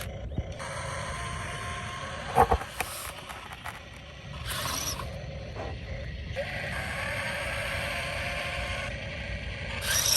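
Heavy construction machinery running with a steady low engine rumble. A single loud metallic clank comes about two and a half seconds in, and a stretch of hissing noise follows later.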